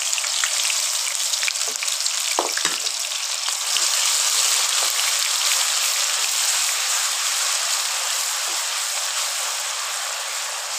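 Chopped onions frying in hot ghee in a wok: a dense, steady sizzle as they are stirred with a wooden spatula, with a couple of short knocks about two and a half seconds in.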